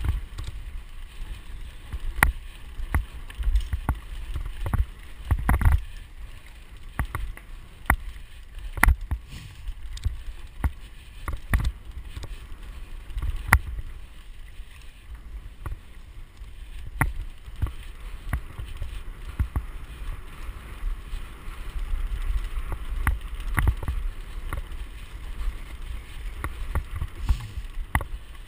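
Mountain bike rattling and clattering over a bumpy dirt trail, with frequent irregular sharp knocks, over a steady low rumble of wind on the microphone.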